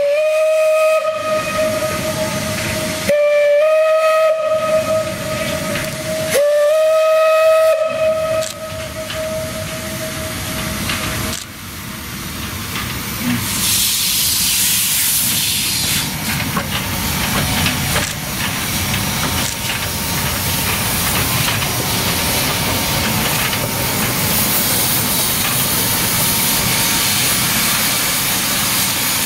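Narrow-gauge steam locomotive's whistle blown three times, the third blast the longest, each sliding up briefly in pitch as it starts. Then a steady loud hiss of steam, the locomotive blowing steam from its cylinders as it moves off and passes close by.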